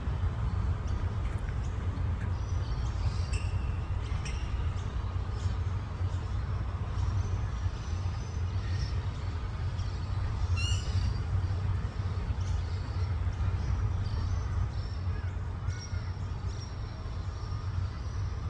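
Birds calling in short, high chirps scattered throughout, with one louder squawking call about ten and a half seconds in, over a steady low rumble.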